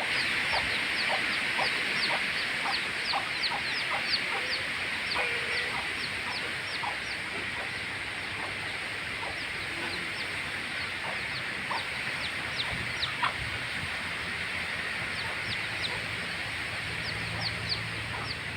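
Chicks peeping over and over in short, high, falling notes, about two to three a second, over a steady hiss.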